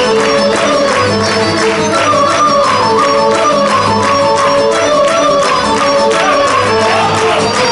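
Lively Serbian Šop folk dance music played live by a folk ensemble with accordion and double bass: a quick melody over a steady, even beat.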